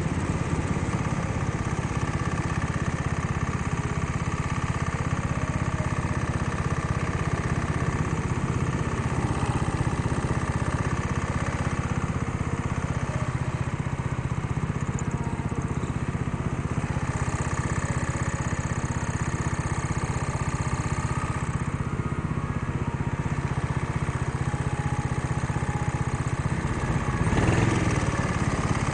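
Indoor go-kart's small engine running continuously, heard from the driver's seat as the kart laps the track, its note shifting a little with throttle. There is a brief louder rush or thump near the end.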